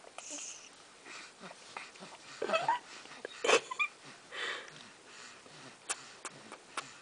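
Two-month-old baby's faint breathy noises and small vocal sounds, with a short rising squeak about two and a half seconds in and a sharp puff of breath about a second later.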